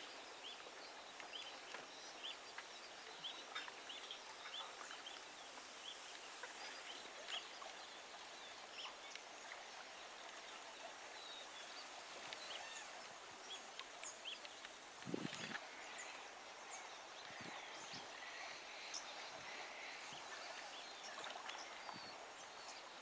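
Quiet riverside ambience with many short, high bird chirps and calls scattered throughout, and one brief low sound about fifteen seconds in.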